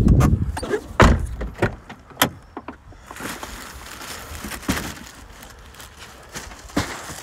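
Handling noise at a car: a quick series of knocks and thumps as cardboard toy boxes are pulled out of the back seat past the open door, then softer rustling and a couple of single knocks.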